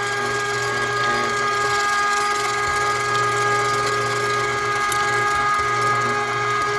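Electric meat grinder running steadily, its motor whining as it grinds chicken gizzards and beef.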